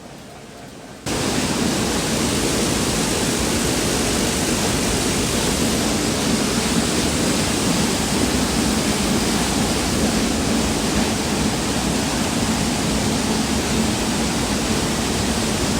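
Dense, steady din of many screw-making machines running at full production on a factory floor, the clatter blending into one continuous noise. It comes in suddenly about a second in.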